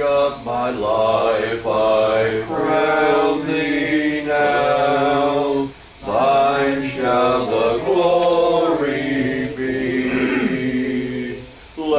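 A congregation singing a hymn a cappella, with no instruments, in long held notes. There is a short break between phrases about six seconds in.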